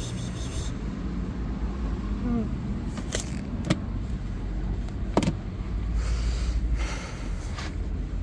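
Plastic pet carrier being handled: three sharp clicks as its grille door is shut and latched, over a steady low rumble. A kitten mews briefly at the start.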